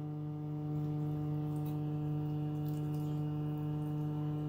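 A steady electrical hum: one low tone with several higher overtones, unchanging throughout.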